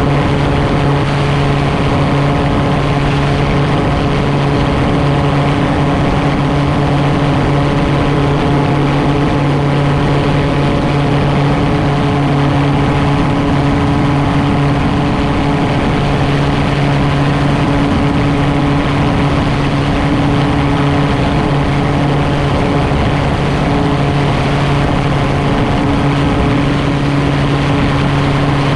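Gyroplane's engine and propeller running at a steady, even speed while it taxis: a constant low hum.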